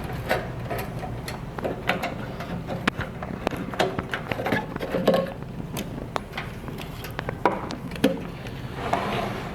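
Irregular clicks, knocks and rattles of hand tools and metal and plastic parts being handled inside an opened microwave oven as its fan and circuit board are taken out.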